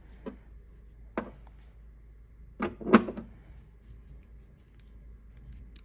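Ratchets and sockets being handled and set down on a surface: a few sharp knocks, with two close together about three seconds in, the second the loudest.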